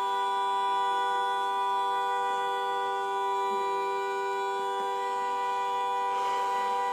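A truck's horn stuck on, sounding continuously as one steady two-tone chord with nobody pressing it: the horn is malfunctioning.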